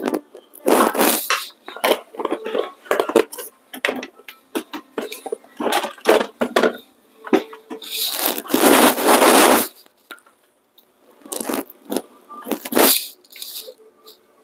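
Kitchen handling noises: a wooden spoon scraping and stirring in a pot of thick bisque, with scattered knocks and clatter. The loudest part is a longer stretch of noise from about eight to nine and a half seconds in.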